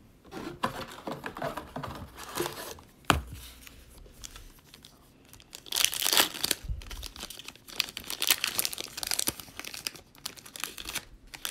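Shiny foil wrapper of a 2020 Panini Prizm football card pack being torn open and crinkled by hand. A loud tear comes about six seconds in, with rustling of the wrapper and cards after it.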